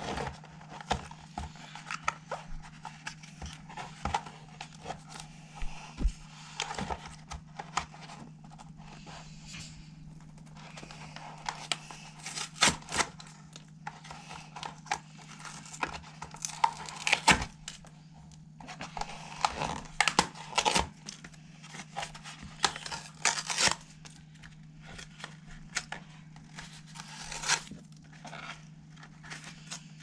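A cardboard product box being torn open by hand: irregular ripping and crinkling of card and paper, in fits and starts, with the busiest tearing in the second half.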